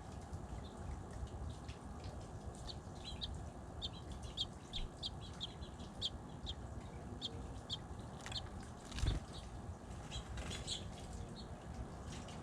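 Birds chirping in a series of short, high chirps, about three a second for a few seconds, then again near the end, over steady low background noise. A single low thump comes about nine seconds in.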